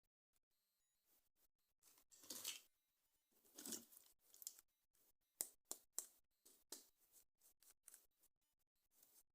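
Faint handling of toy packaging during unboxing: two longer rustling scrapes, then a run of short, sharp snips and clicks.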